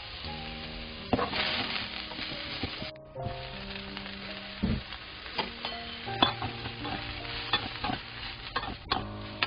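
Garlic sizzling in hot oil in a wok, then oyster mushrooms and bell peppers frying with a steady sizzle. In the second half a wooden spatula stirs them, scraping and knocking against the pan again and again.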